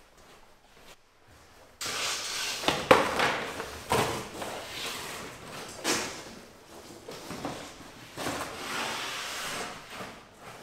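Large sheets of thick cardboard from flattened furniture boxes being handled and stood against a wall: scraping and rustling with several knocks, starting about two seconds in.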